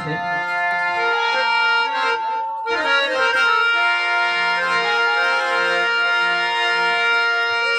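Harmonium playing a melody of held reed notes over intermittent lower notes, with a brief break about two and a half seconds in.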